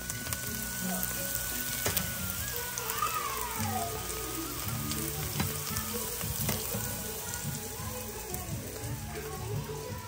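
Hot oil sizzling steadily in a frying pan as a thin round fries, with background music over it.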